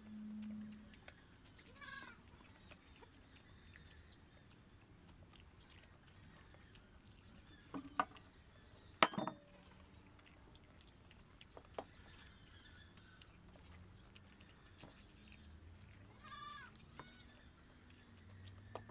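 An animal gives a few short, high calls, once about two seconds in and again near the end, over faint background noise. Two sharp knocks come around the middle.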